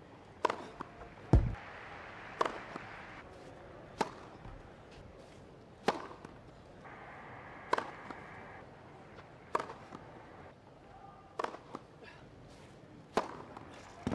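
A run of tennis serves: sharp racket-on-ball cracks and ball impacts, about one every one to two seconds, from a string of unreturned aces. The loudest impact, with a deeper thump, comes about a second and a half in.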